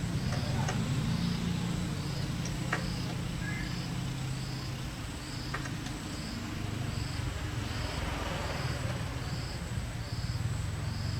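A small engine running steadily at a low hum, with a short high chirp repeating a little more than once a second and a few faint clicks.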